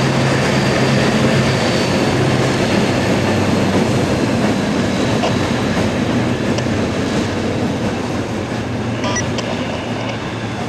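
Diesel locomotive engine running with a steady low drone as the locomotive moves slowly along the track, easing off slightly near the end.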